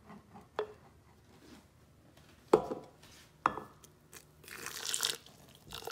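Kitchen handling sounds: three sharp knocks of things set down or handled on a stone counter, the second the loudest, then about a second of rustling noise near the end.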